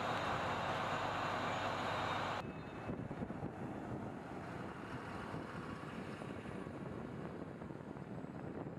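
Steady tyre and wind noise of driving at highway speed, with no clear engine note; about two seconds in it drops suddenly to a quieter, rougher rumble.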